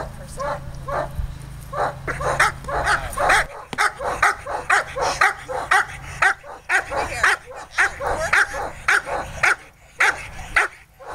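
A 13-month-old German shepherd barking repeatedly at a protection-training helper, about two barks a second, thinning out near the end: the guarding bark of bite-work training.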